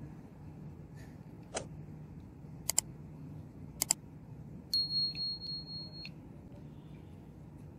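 Small, sharp clicks of metal contact parts being handled and fitted into a magnetic contactor's plastic housing: a single click, then two quick double clicks a second apart. After that a steady high-pitched beep sounds for about a second and a half, over a low hum.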